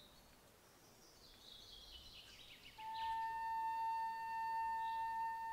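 Background flute music: after a quiet start and a high trill that slides downward, the flute holds one long steady note from about three seconds in, with soft high chirps around it.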